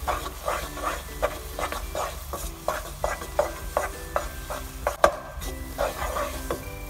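Wooden spatula stirring and scraping thick semolina halwa around a nonstick frying pan in quick, regular strokes, about two to three a second, while the halwa cooks down in ghee towards brown. The spatula knocks the pan once, more sharply, about five seconds in.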